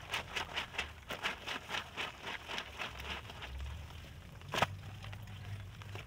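Wet, soapy clothing scrubbed by hand against a stone washing slab: quick rhythmic rubbing strokes, about four or five a second, that fade out about halfway, then one louder slap of wet cloth.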